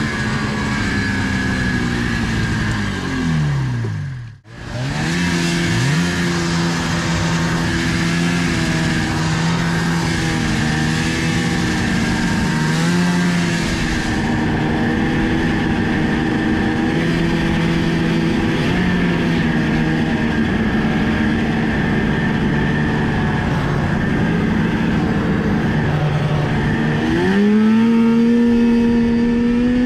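Rotax 583 two-stroke twin in a 1981 Ski-Doo Blizzard snowmobile, running while the sled is ridden. The engine note falls away over the first few seconds and cuts out for a moment, then holds fairly steady with small rises and dips. Near the end it revs up sharply.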